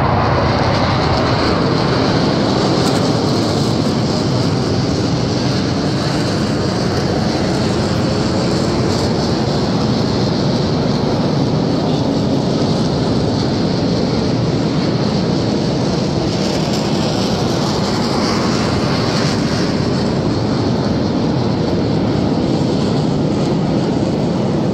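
Steady jet noise from T-50B aircraft flying over, their single turbofan engines a continuous loud rushing that neither rises nor fades.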